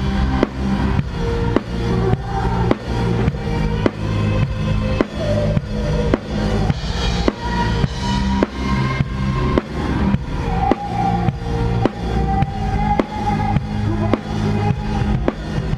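Band music driven by a full drum kit: bass drum and snare keep a steady beat of about two hits a second over sustained bass notes. A higher held melody line enters about two thirds of the way through.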